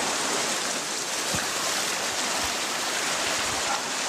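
Steady rush of running stream water, with a few soft low thumps.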